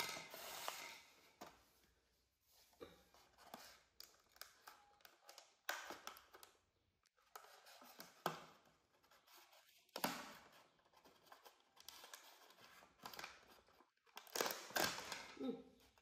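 Thin clear plastic clamshell food container being handled and opened: irregular crackling and clicking of the plastic lid in several short bursts.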